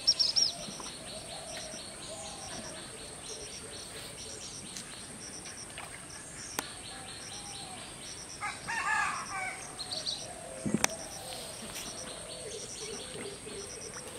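Outdoor rural birdsong: small birds chirping repeatedly over a steady insect drone. A louder, short call, such as a rooster's, comes about nine seconds in, and a single sharp knock follows near eleven seconds.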